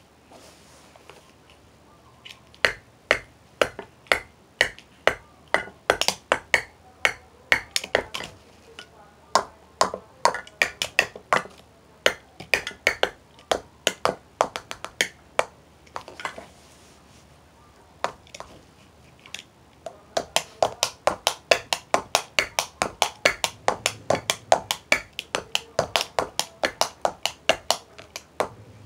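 Sharp, clicky strikes played irregularly on a homemade drum set, in runs broken by short pauses, getting denser at about three to four hits a second in the second half.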